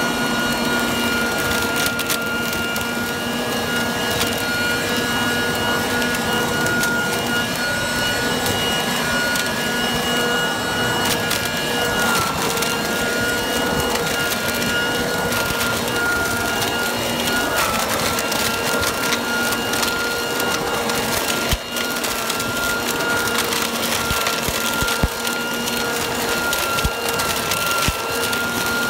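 Ryobi RBV3000CESV corded electric blower-vac running in vacuum mode: a loud, steady motor whine with a crackle of dry leaves being sucked in and chewed up by the mulching impeller. The whine dips slightly in pitch twice, about twelve and about eighteen seconds in, as it takes in more leaves.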